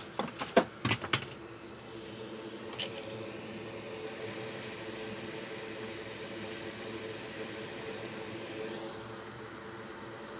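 A few sharp clicks and taps of small tools, then the steady whir and hiss of a hot air rework station's blower. The hiss grows brighter for a few seconds in the middle and then falls back.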